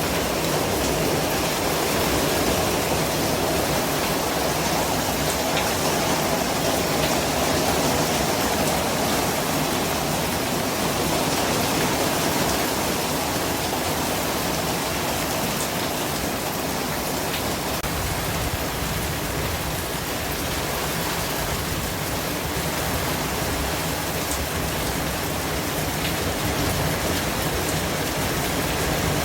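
Steady white-noise hiss spread evenly across the range, with a few faint ticks and no change in level.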